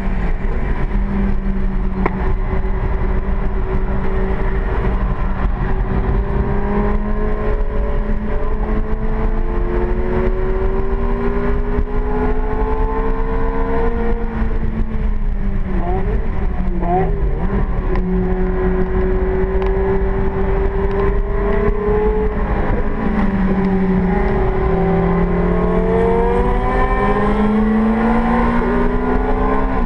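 Ferrari 430 GT3's V8 racing engine heard from inside the cockpit, pulling hard with its pitch climbing slowly. About halfway through, the revs drop in a series of downshifts with two quick throttle blips; then the engine pulls up through the revs again and drops once more near the end.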